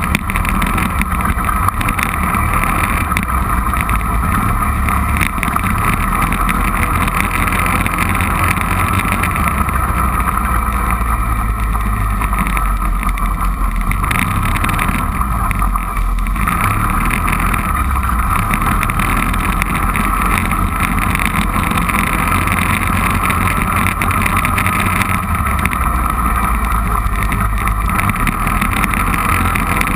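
Four-wheeler (ATV) engine running steadily under way, a loud continuous drone.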